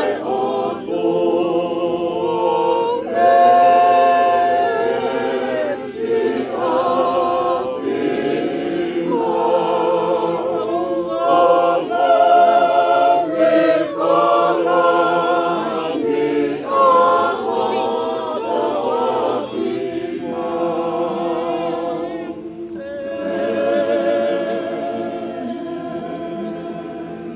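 A group of mourners singing a Tongan hymn a cappella in several-part harmony, with long held notes.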